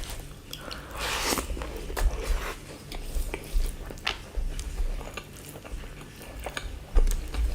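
Close-miked eating: chewing and biting, with scattered short wet clicks and one longer noisy smear about a second in.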